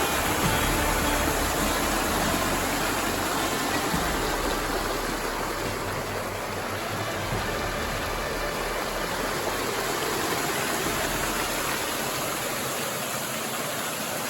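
Small waterfall, water falling and running in a steady rush.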